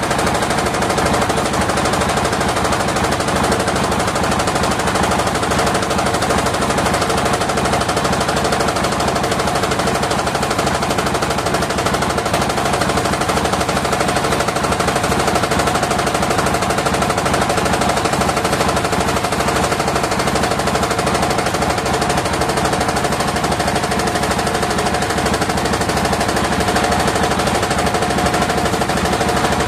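Circular saw mill running steadily and cutting waru (sea hibiscus) timber: a dense, rapid rattle with a steady whine.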